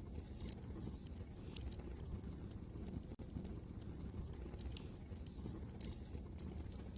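Wood fire crackling, with irregular sharp pops and snaps several times a second, over a steady low rumble of wind.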